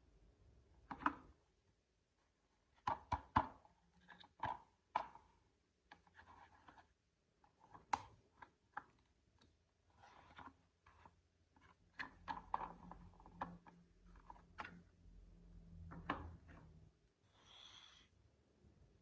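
Marbles rolling and clacking through a wooden marble run: a faint, irregular string of sharp knocks and clicks, with a low hum joining for a few seconds past the middle.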